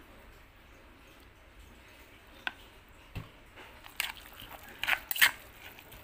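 A spoon stirring and scraping chili-and-mackerel paste in a stone mortar. It is quiet at first, then there is a single click about two and a half seconds in, a soft knock, and a run of sharp, irregular scrapes and clicks in the last two seconds.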